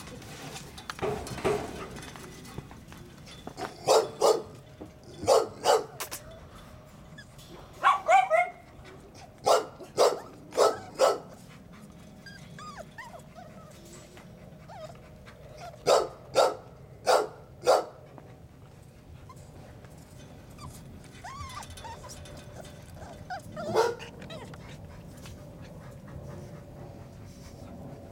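Dogs barking in short runs of two to four sharp barks, several seconds apart, with a single bark near the end. Faint whimpering is heard in the quieter stretches between runs.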